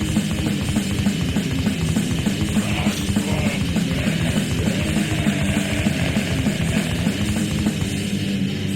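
Death/black metal recording: distorted electric guitars and bass over fast, rapid-fire drumming, with no vocals. Near the end the drums drop away and held guitar chords ring on.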